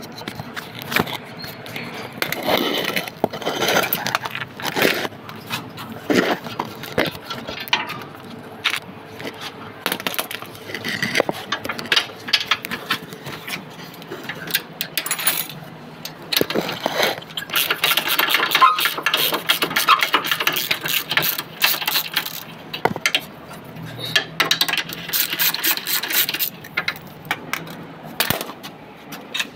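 Metal hand tools working on a car's underside during suspension repair: scattered clinks and knocks, with denser runs of clicking in the second half.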